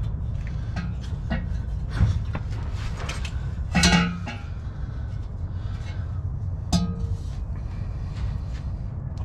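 Steel exhaust hanger rods clinking and knocking as they are worked in their rubber isolators under a Ford F250. There are two louder brief pitched sounds about four and seven seconds in, over a steady low rumble.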